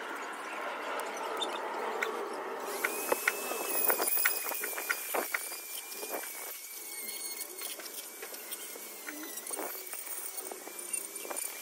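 Small rotary engraving tool working wood. Scraping and clicking at first, then about three seconds in the tool's motor starts a steady high whine that holds on, with clicks and short scrapes as the bit meets the wood.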